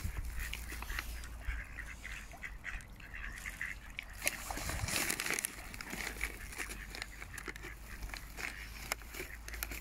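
Mallard ducks and Canada geese calling on the water: repeated quacks and honks, loudest about five seconds in.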